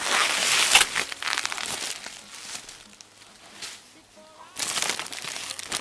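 Paper mailer and plastic bag rustling and crinkling as a package's contents are pulled out by hand, loud for the first two seconds, quieter for a while, then a second burst of crinkling near the end.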